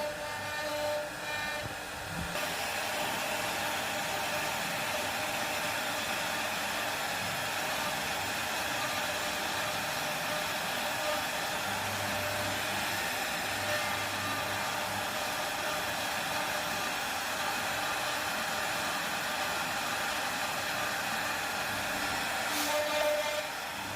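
Steady, even machine noise like rushing air, unbroken for about twenty seconds, with short tones at the start and again near the end.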